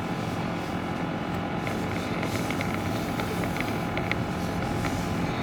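A vehicle running steadily, a continuous engine and rolling hum with a few faint clicks.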